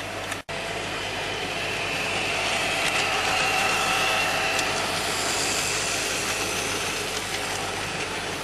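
Model train running past on its track: a steady whirring of the motor and the wheels on the rails, swelling about two seconds in as the train passes close and then easing off. The sound drops out briefly about half a second in.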